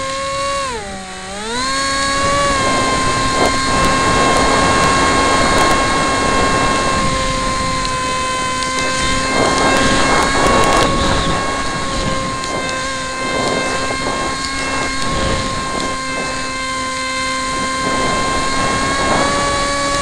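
Electric motor and propeller of a Dynam Snow Bird RC plane, heard from a camera on board: a steady, high whine with wind rushing past the microphone. The motor's pitch dips briefly about a second in and comes back up, and the wind swells about halfway through.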